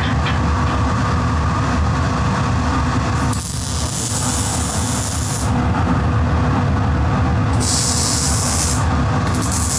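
Electric welding arc hissing on a steel tube frame in three bursts, the first starting about a third of the way in, the others near the end. Under it runs a steady low rumble.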